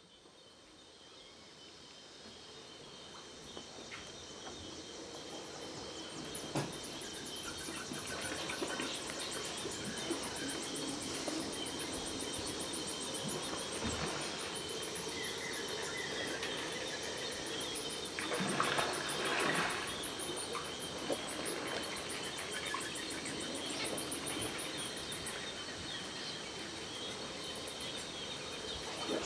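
Amazon floodplain-forest dawn chorus: a steady high insect buzz and a fast-pulsing, very high insect trill, with scattered bird calls over them. It fades in from silence over the first few seconds and grows louder about six seconds in.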